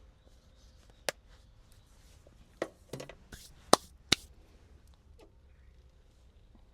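A handful of sharp knocks and clicks, about six over three seconds, with the two loudest close together near the middle.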